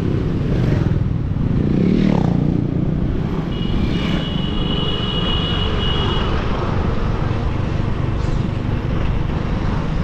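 Steady engine and road noise of a car driving in traffic, with a louder swell about two seconds in. A high steady tone, a few stacked pitches, sounds for about two and a half seconds near the middle.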